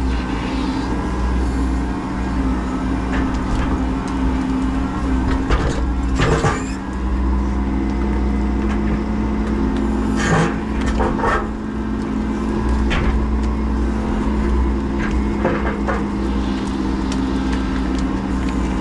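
Menzi Muck M335 walking excavator's diesel engine running steadily as the hydraulics work the arm, heard from the cab. Several short clanks and knocks cut through it, the sharpest about six seconds in and again around ten to eleven seconds.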